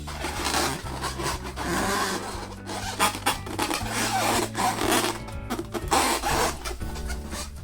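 Latex balloons being handled, with a run of irregular noisy rushes of rubbing and air over background music.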